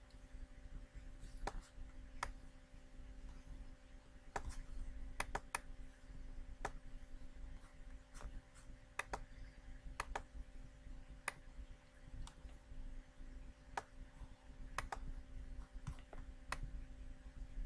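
Scattered, irregular clicks from working a computer, about twenty of them, some in quick pairs, over a faint steady electrical hum.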